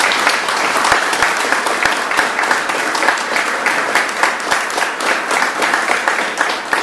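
A crowd of people applauding: dense, steady clapping that stays loud throughout.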